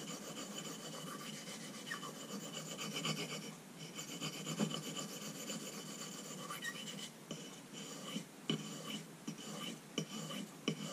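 Victorinox Tinker pocketknife blade scraped back and forth across an oiled soft Arkansas whetstone, a steady rasp at first that breaks into separate shorter strokes with short gaps in the second half. The stone's face is glazed and cutting slowly.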